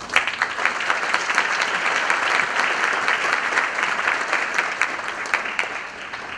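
Audience applauding: many hands clapping in a dense, even patter that starts at once and dies away near the end.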